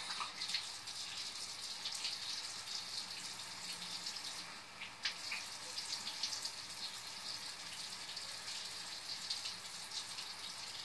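Water running steadily from a bathroom faucet into the sink, with small splashes as hands cup water to the face.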